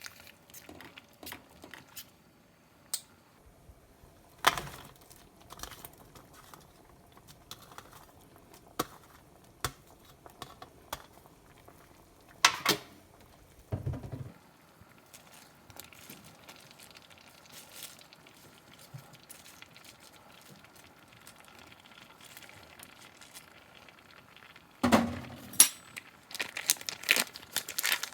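Kitchen handling sounds while cooking: scattered light clicks and knocks of dishes and utensils with some crinkling, and a denser clatter near the end.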